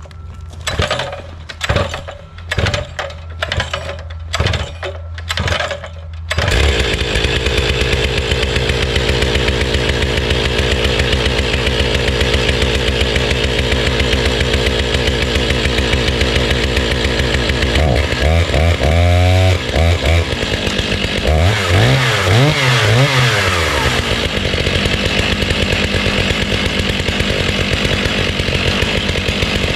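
Chainsaw on an Alaskan chainsaw mill, started after a string of short strokes. It catches about six seconds in and runs steadily at high speed, ripping a slab lengthwise from a large log. The engine pitch wavers twice a little past the middle as the load changes.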